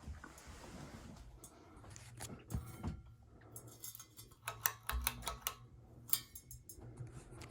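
Hunter Original 52-inch ceiling fan running with a low steady hum, overlaid by irregular clicks and light rattles that are busiest around the middle.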